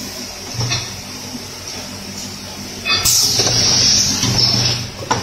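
Automatic cap assembly machine running: a steady mechanical hum with sharp clicks now and then from its indexing heads. About three seconds in, a loud burst of compressed-air hiss lasts about a second.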